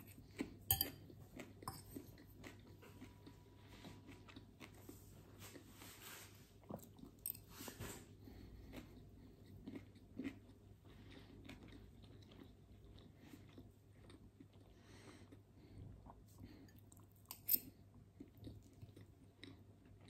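A person chewing and biting food, with soft wet mouth sounds and a few sharp clicks of a metal fork against a glass bowl.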